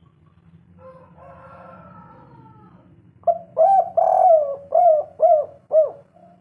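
Spotted dove (tekukur) cooing: a run of five or six loud, hollow coo notes starting about three seconds in, the second-to-first note drawn out longest and the last ones short and clipped. Before it there is fainter calling.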